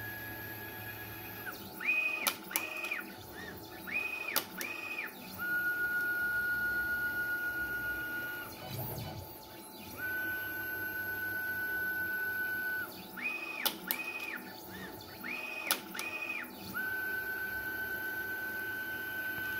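Onefinity CNC's stepper motors whining as the machine drives its pen-plotter head. Long steady whines of a few seconds alternate with two groups of four short, higher whines and a few sharp clicks as it draws small squares with markers.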